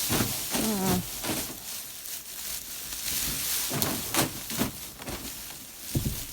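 Goats feeding on hay and grain: steady dry rustling with scattered crunches, and one short goat bleat about a second in.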